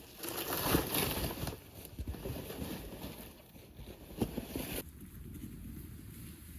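Footsteps on a wet, slushy trail of snow and dirt, uneven steps one after another. The sound changes abruptly to a quieter, duller one about five seconds in.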